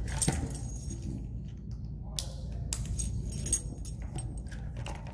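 Metal ID tags on a dog's collar jingling in two short spells while a harness is fitted, with a sharper click about three and a half seconds in.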